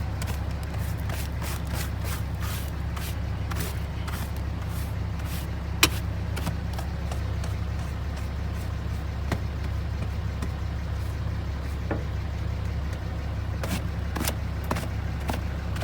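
Steady low rumble with scattered clicks and knocks from clearing debris out of a truck cab by hand; one sharp knock about six seconds in.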